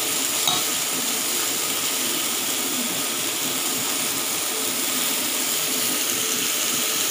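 Chicken sizzling steadily on a hot ridged grill pan, with one light click about half a second in.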